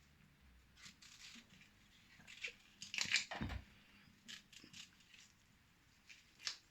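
Knife slicing zucchini into small pieces: scattered, uneven crisp cuts, loudest in a cluster about three seconds in.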